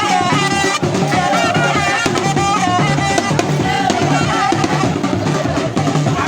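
Loud music with drums and percussion keeping a steady beat, and a wavering, gliding melody line over it.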